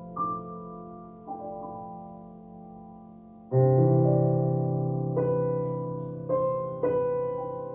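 Slow, soft piano music: single sustained notes die away slowly, then a full chord with a deep bass note sounds about three and a half seconds in, the loudest moment, followed by a few more single melody notes.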